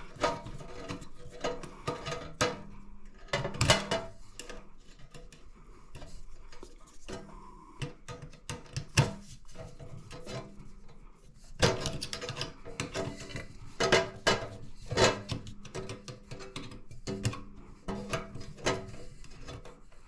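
Scattered metallic clicks, clinks and knocks from a flathead screwdriver loosening the ground-wire screw and the metal light fixture being handled. The clinks come thickest about twelve to sixteen seconds in.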